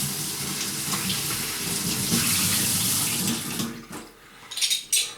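Kitchen tap running into the sink, shut off about three and a half seconds in, followed by a few short knocks and clatters.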